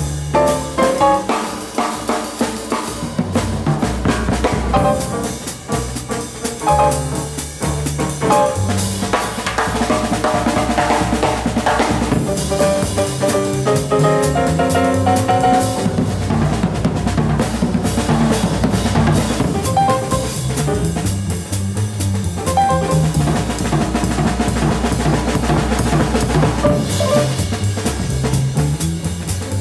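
Live jazz quartet playing: a grand piano takes the lead over an upright bass and a drum kit keeping time.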